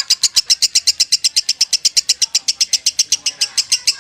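Lovebird singing its 'ngekek' chatter in the 'konslet' style: a long unbroken run of sharp, high chirps at about ten a second, with no pause for breath.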